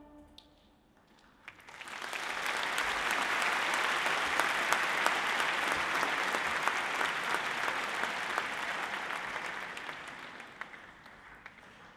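Audience clapping. After a short hush the clapping swells about a second and a half in, holds, then dies away near the end.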